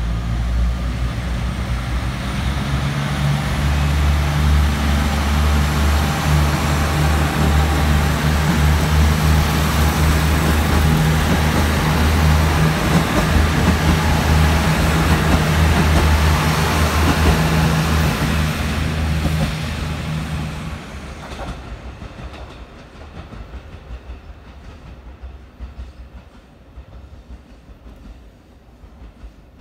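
KiHa 75 series diesel multiple unit pulling out of the station and running past, its diesel engines giving a steady low drone over loud wheel and rail noise. The sound builds, then dies away about 20 seconds in as the train leaves, giving way to a much quieter background.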